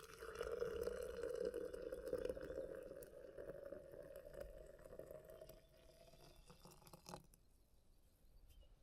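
Hot water being poured into a French press over coffee grounds: a steady pour that tapers off over several seconds, ending with a small clink about seven seconds in.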